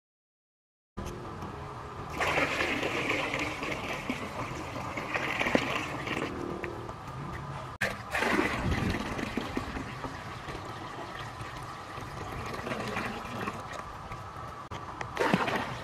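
Water poured from a clay pot splashing and gurgling into a small pool that already holds water. The sound comes in a few pours broken by abrupt cuts, after a second of silence at the start.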